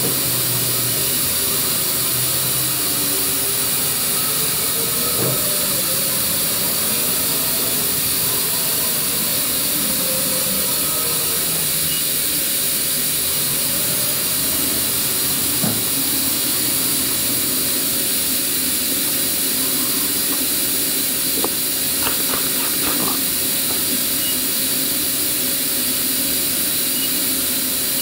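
2011 Haas VF-5SS CNC vertical mill making axis moves under power: servo motors whining up and down in pitch as the head and table traverse, over a steady hiss. A few short clicks come in the second half.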